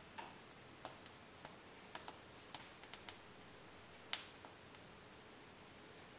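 About a dozen light clicks and taps at an irregular pace, with one sharper click about four seconds in.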